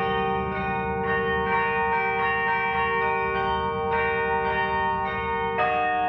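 Carillon bells played from the baton keyboard: a melody of struck bells ringing on into one another over a held low bell, with a new, lower chord struck near the end.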